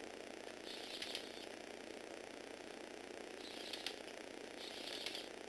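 Small electric motors driving the plastic gear train of a motorised Lego Technic 8265 loader: a steady whir, broken three times by short bursts of higher-pitched gear rattling and clicking.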